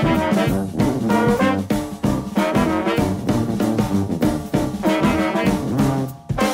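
Jazzy background music with brass horns playing over drums.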